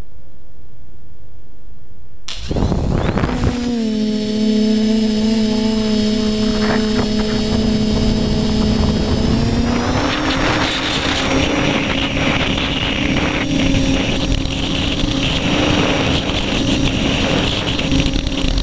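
Quadcopter's electric motors and propellers starting up suddenly about two seconds in, then a steady buzzing hum with a thin high whine, heard from a camera on the craft. About halfway through the pitch rises a little and a rougher rushing joins in as it flies.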